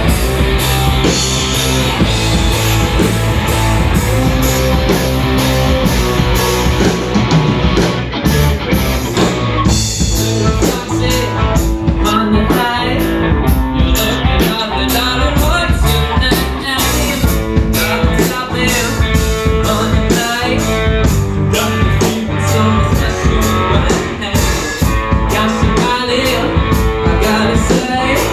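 Rock band playing live: electric guitar over bass and drum kit, with a steady driving beat.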